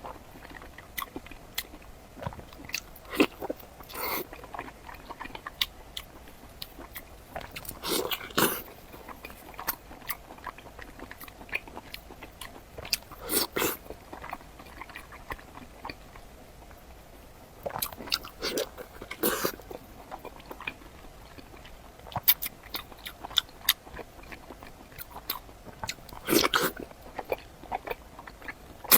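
A person biting and chewing a strip of meat close to the microphone: irregular mouth clicks and chewing, with a louder bite every few seconds.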